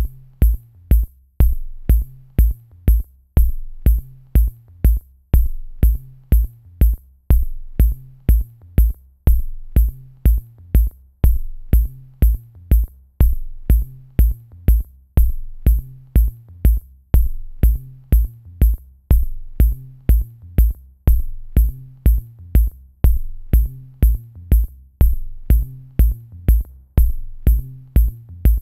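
Electronic background music with a steady drum-machine beat: a deep kick about twice a second under crisp high hi-hat ticks.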